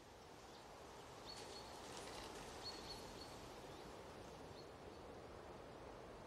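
Faint forest ambience: a low steady hiss with a few short, high bird chirps.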